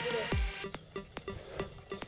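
Electronic dance music with a steady, fast beat, opening with a noise swell and a falling bass sweep.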